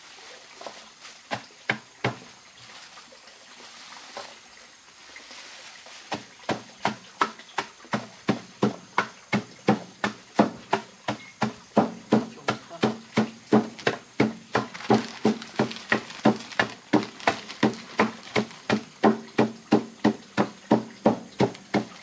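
Chopping strokes on a wooden board: a few scattered strokes, then from about six seconds in a steady rhythm of about two to three strokes a second, each with a short hollow ring.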